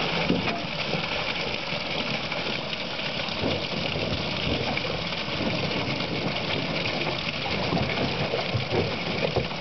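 Water gushing steadily out of a large delivery pipe into a plastic box as the fish tank is emptied to stock rainbow trout, with a steady engine or pump hum underneath.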